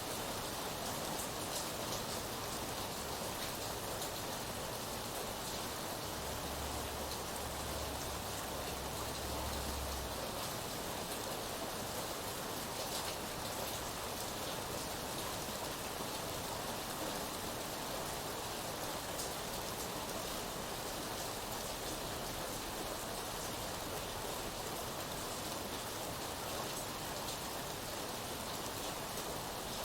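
Steady rain falling: an even hiss with scattered drop ticks, unchanging throughout.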